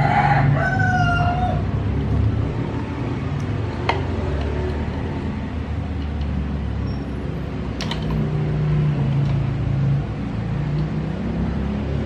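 A rooster crowing once at the start, one drawn-out call that falls away at the end. Under it runs a steady low hum, with a couple of light clicks later on.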